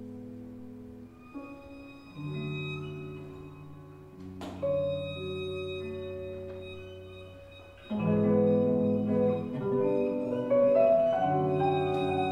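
Live improvised instrumental music: held, ringing notes that slowly fade, with new notes entering every second or two and a sharp plucked attack about four and a half seconds in. From about eight seconds the music grows louder and denser, with several notes sounding at once.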